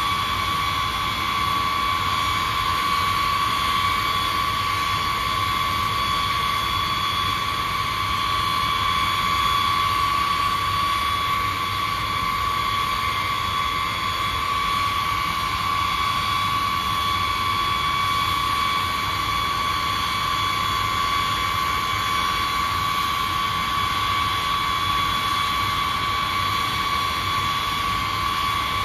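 B-52H bomber's TF33 turbofan jet engines running steadily at low power, a constant whine over a steady rush of noise.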